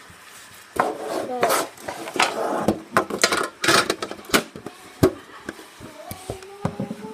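Foil Pokémon booster-pack wrapper crinkling and tearing as it is ripped open by hand, a dense run of sharp crackles that thins out near the end as the cards are slid out.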